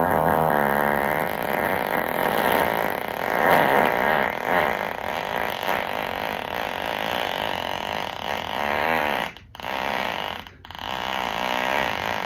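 A long, drawn-out fart that runs for about nine seconds, breaking off briefly twice near the end before carrying on.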